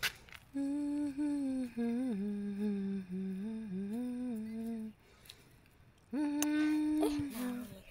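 A woman humming a tune in long, gliding held notes: one phrase of about four seconds, a short pause, then one more long held note near the end.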